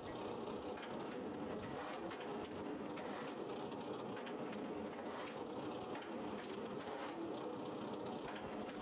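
Firewood splitter machine running steadily, a constant mechanical hum with occasional faint knocks.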